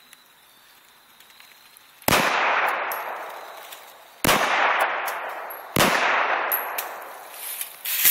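Three 9mm Glock 19 pistol shots about two seconds apart, each with a long echo fading behind it, and a fourth shot at the very end.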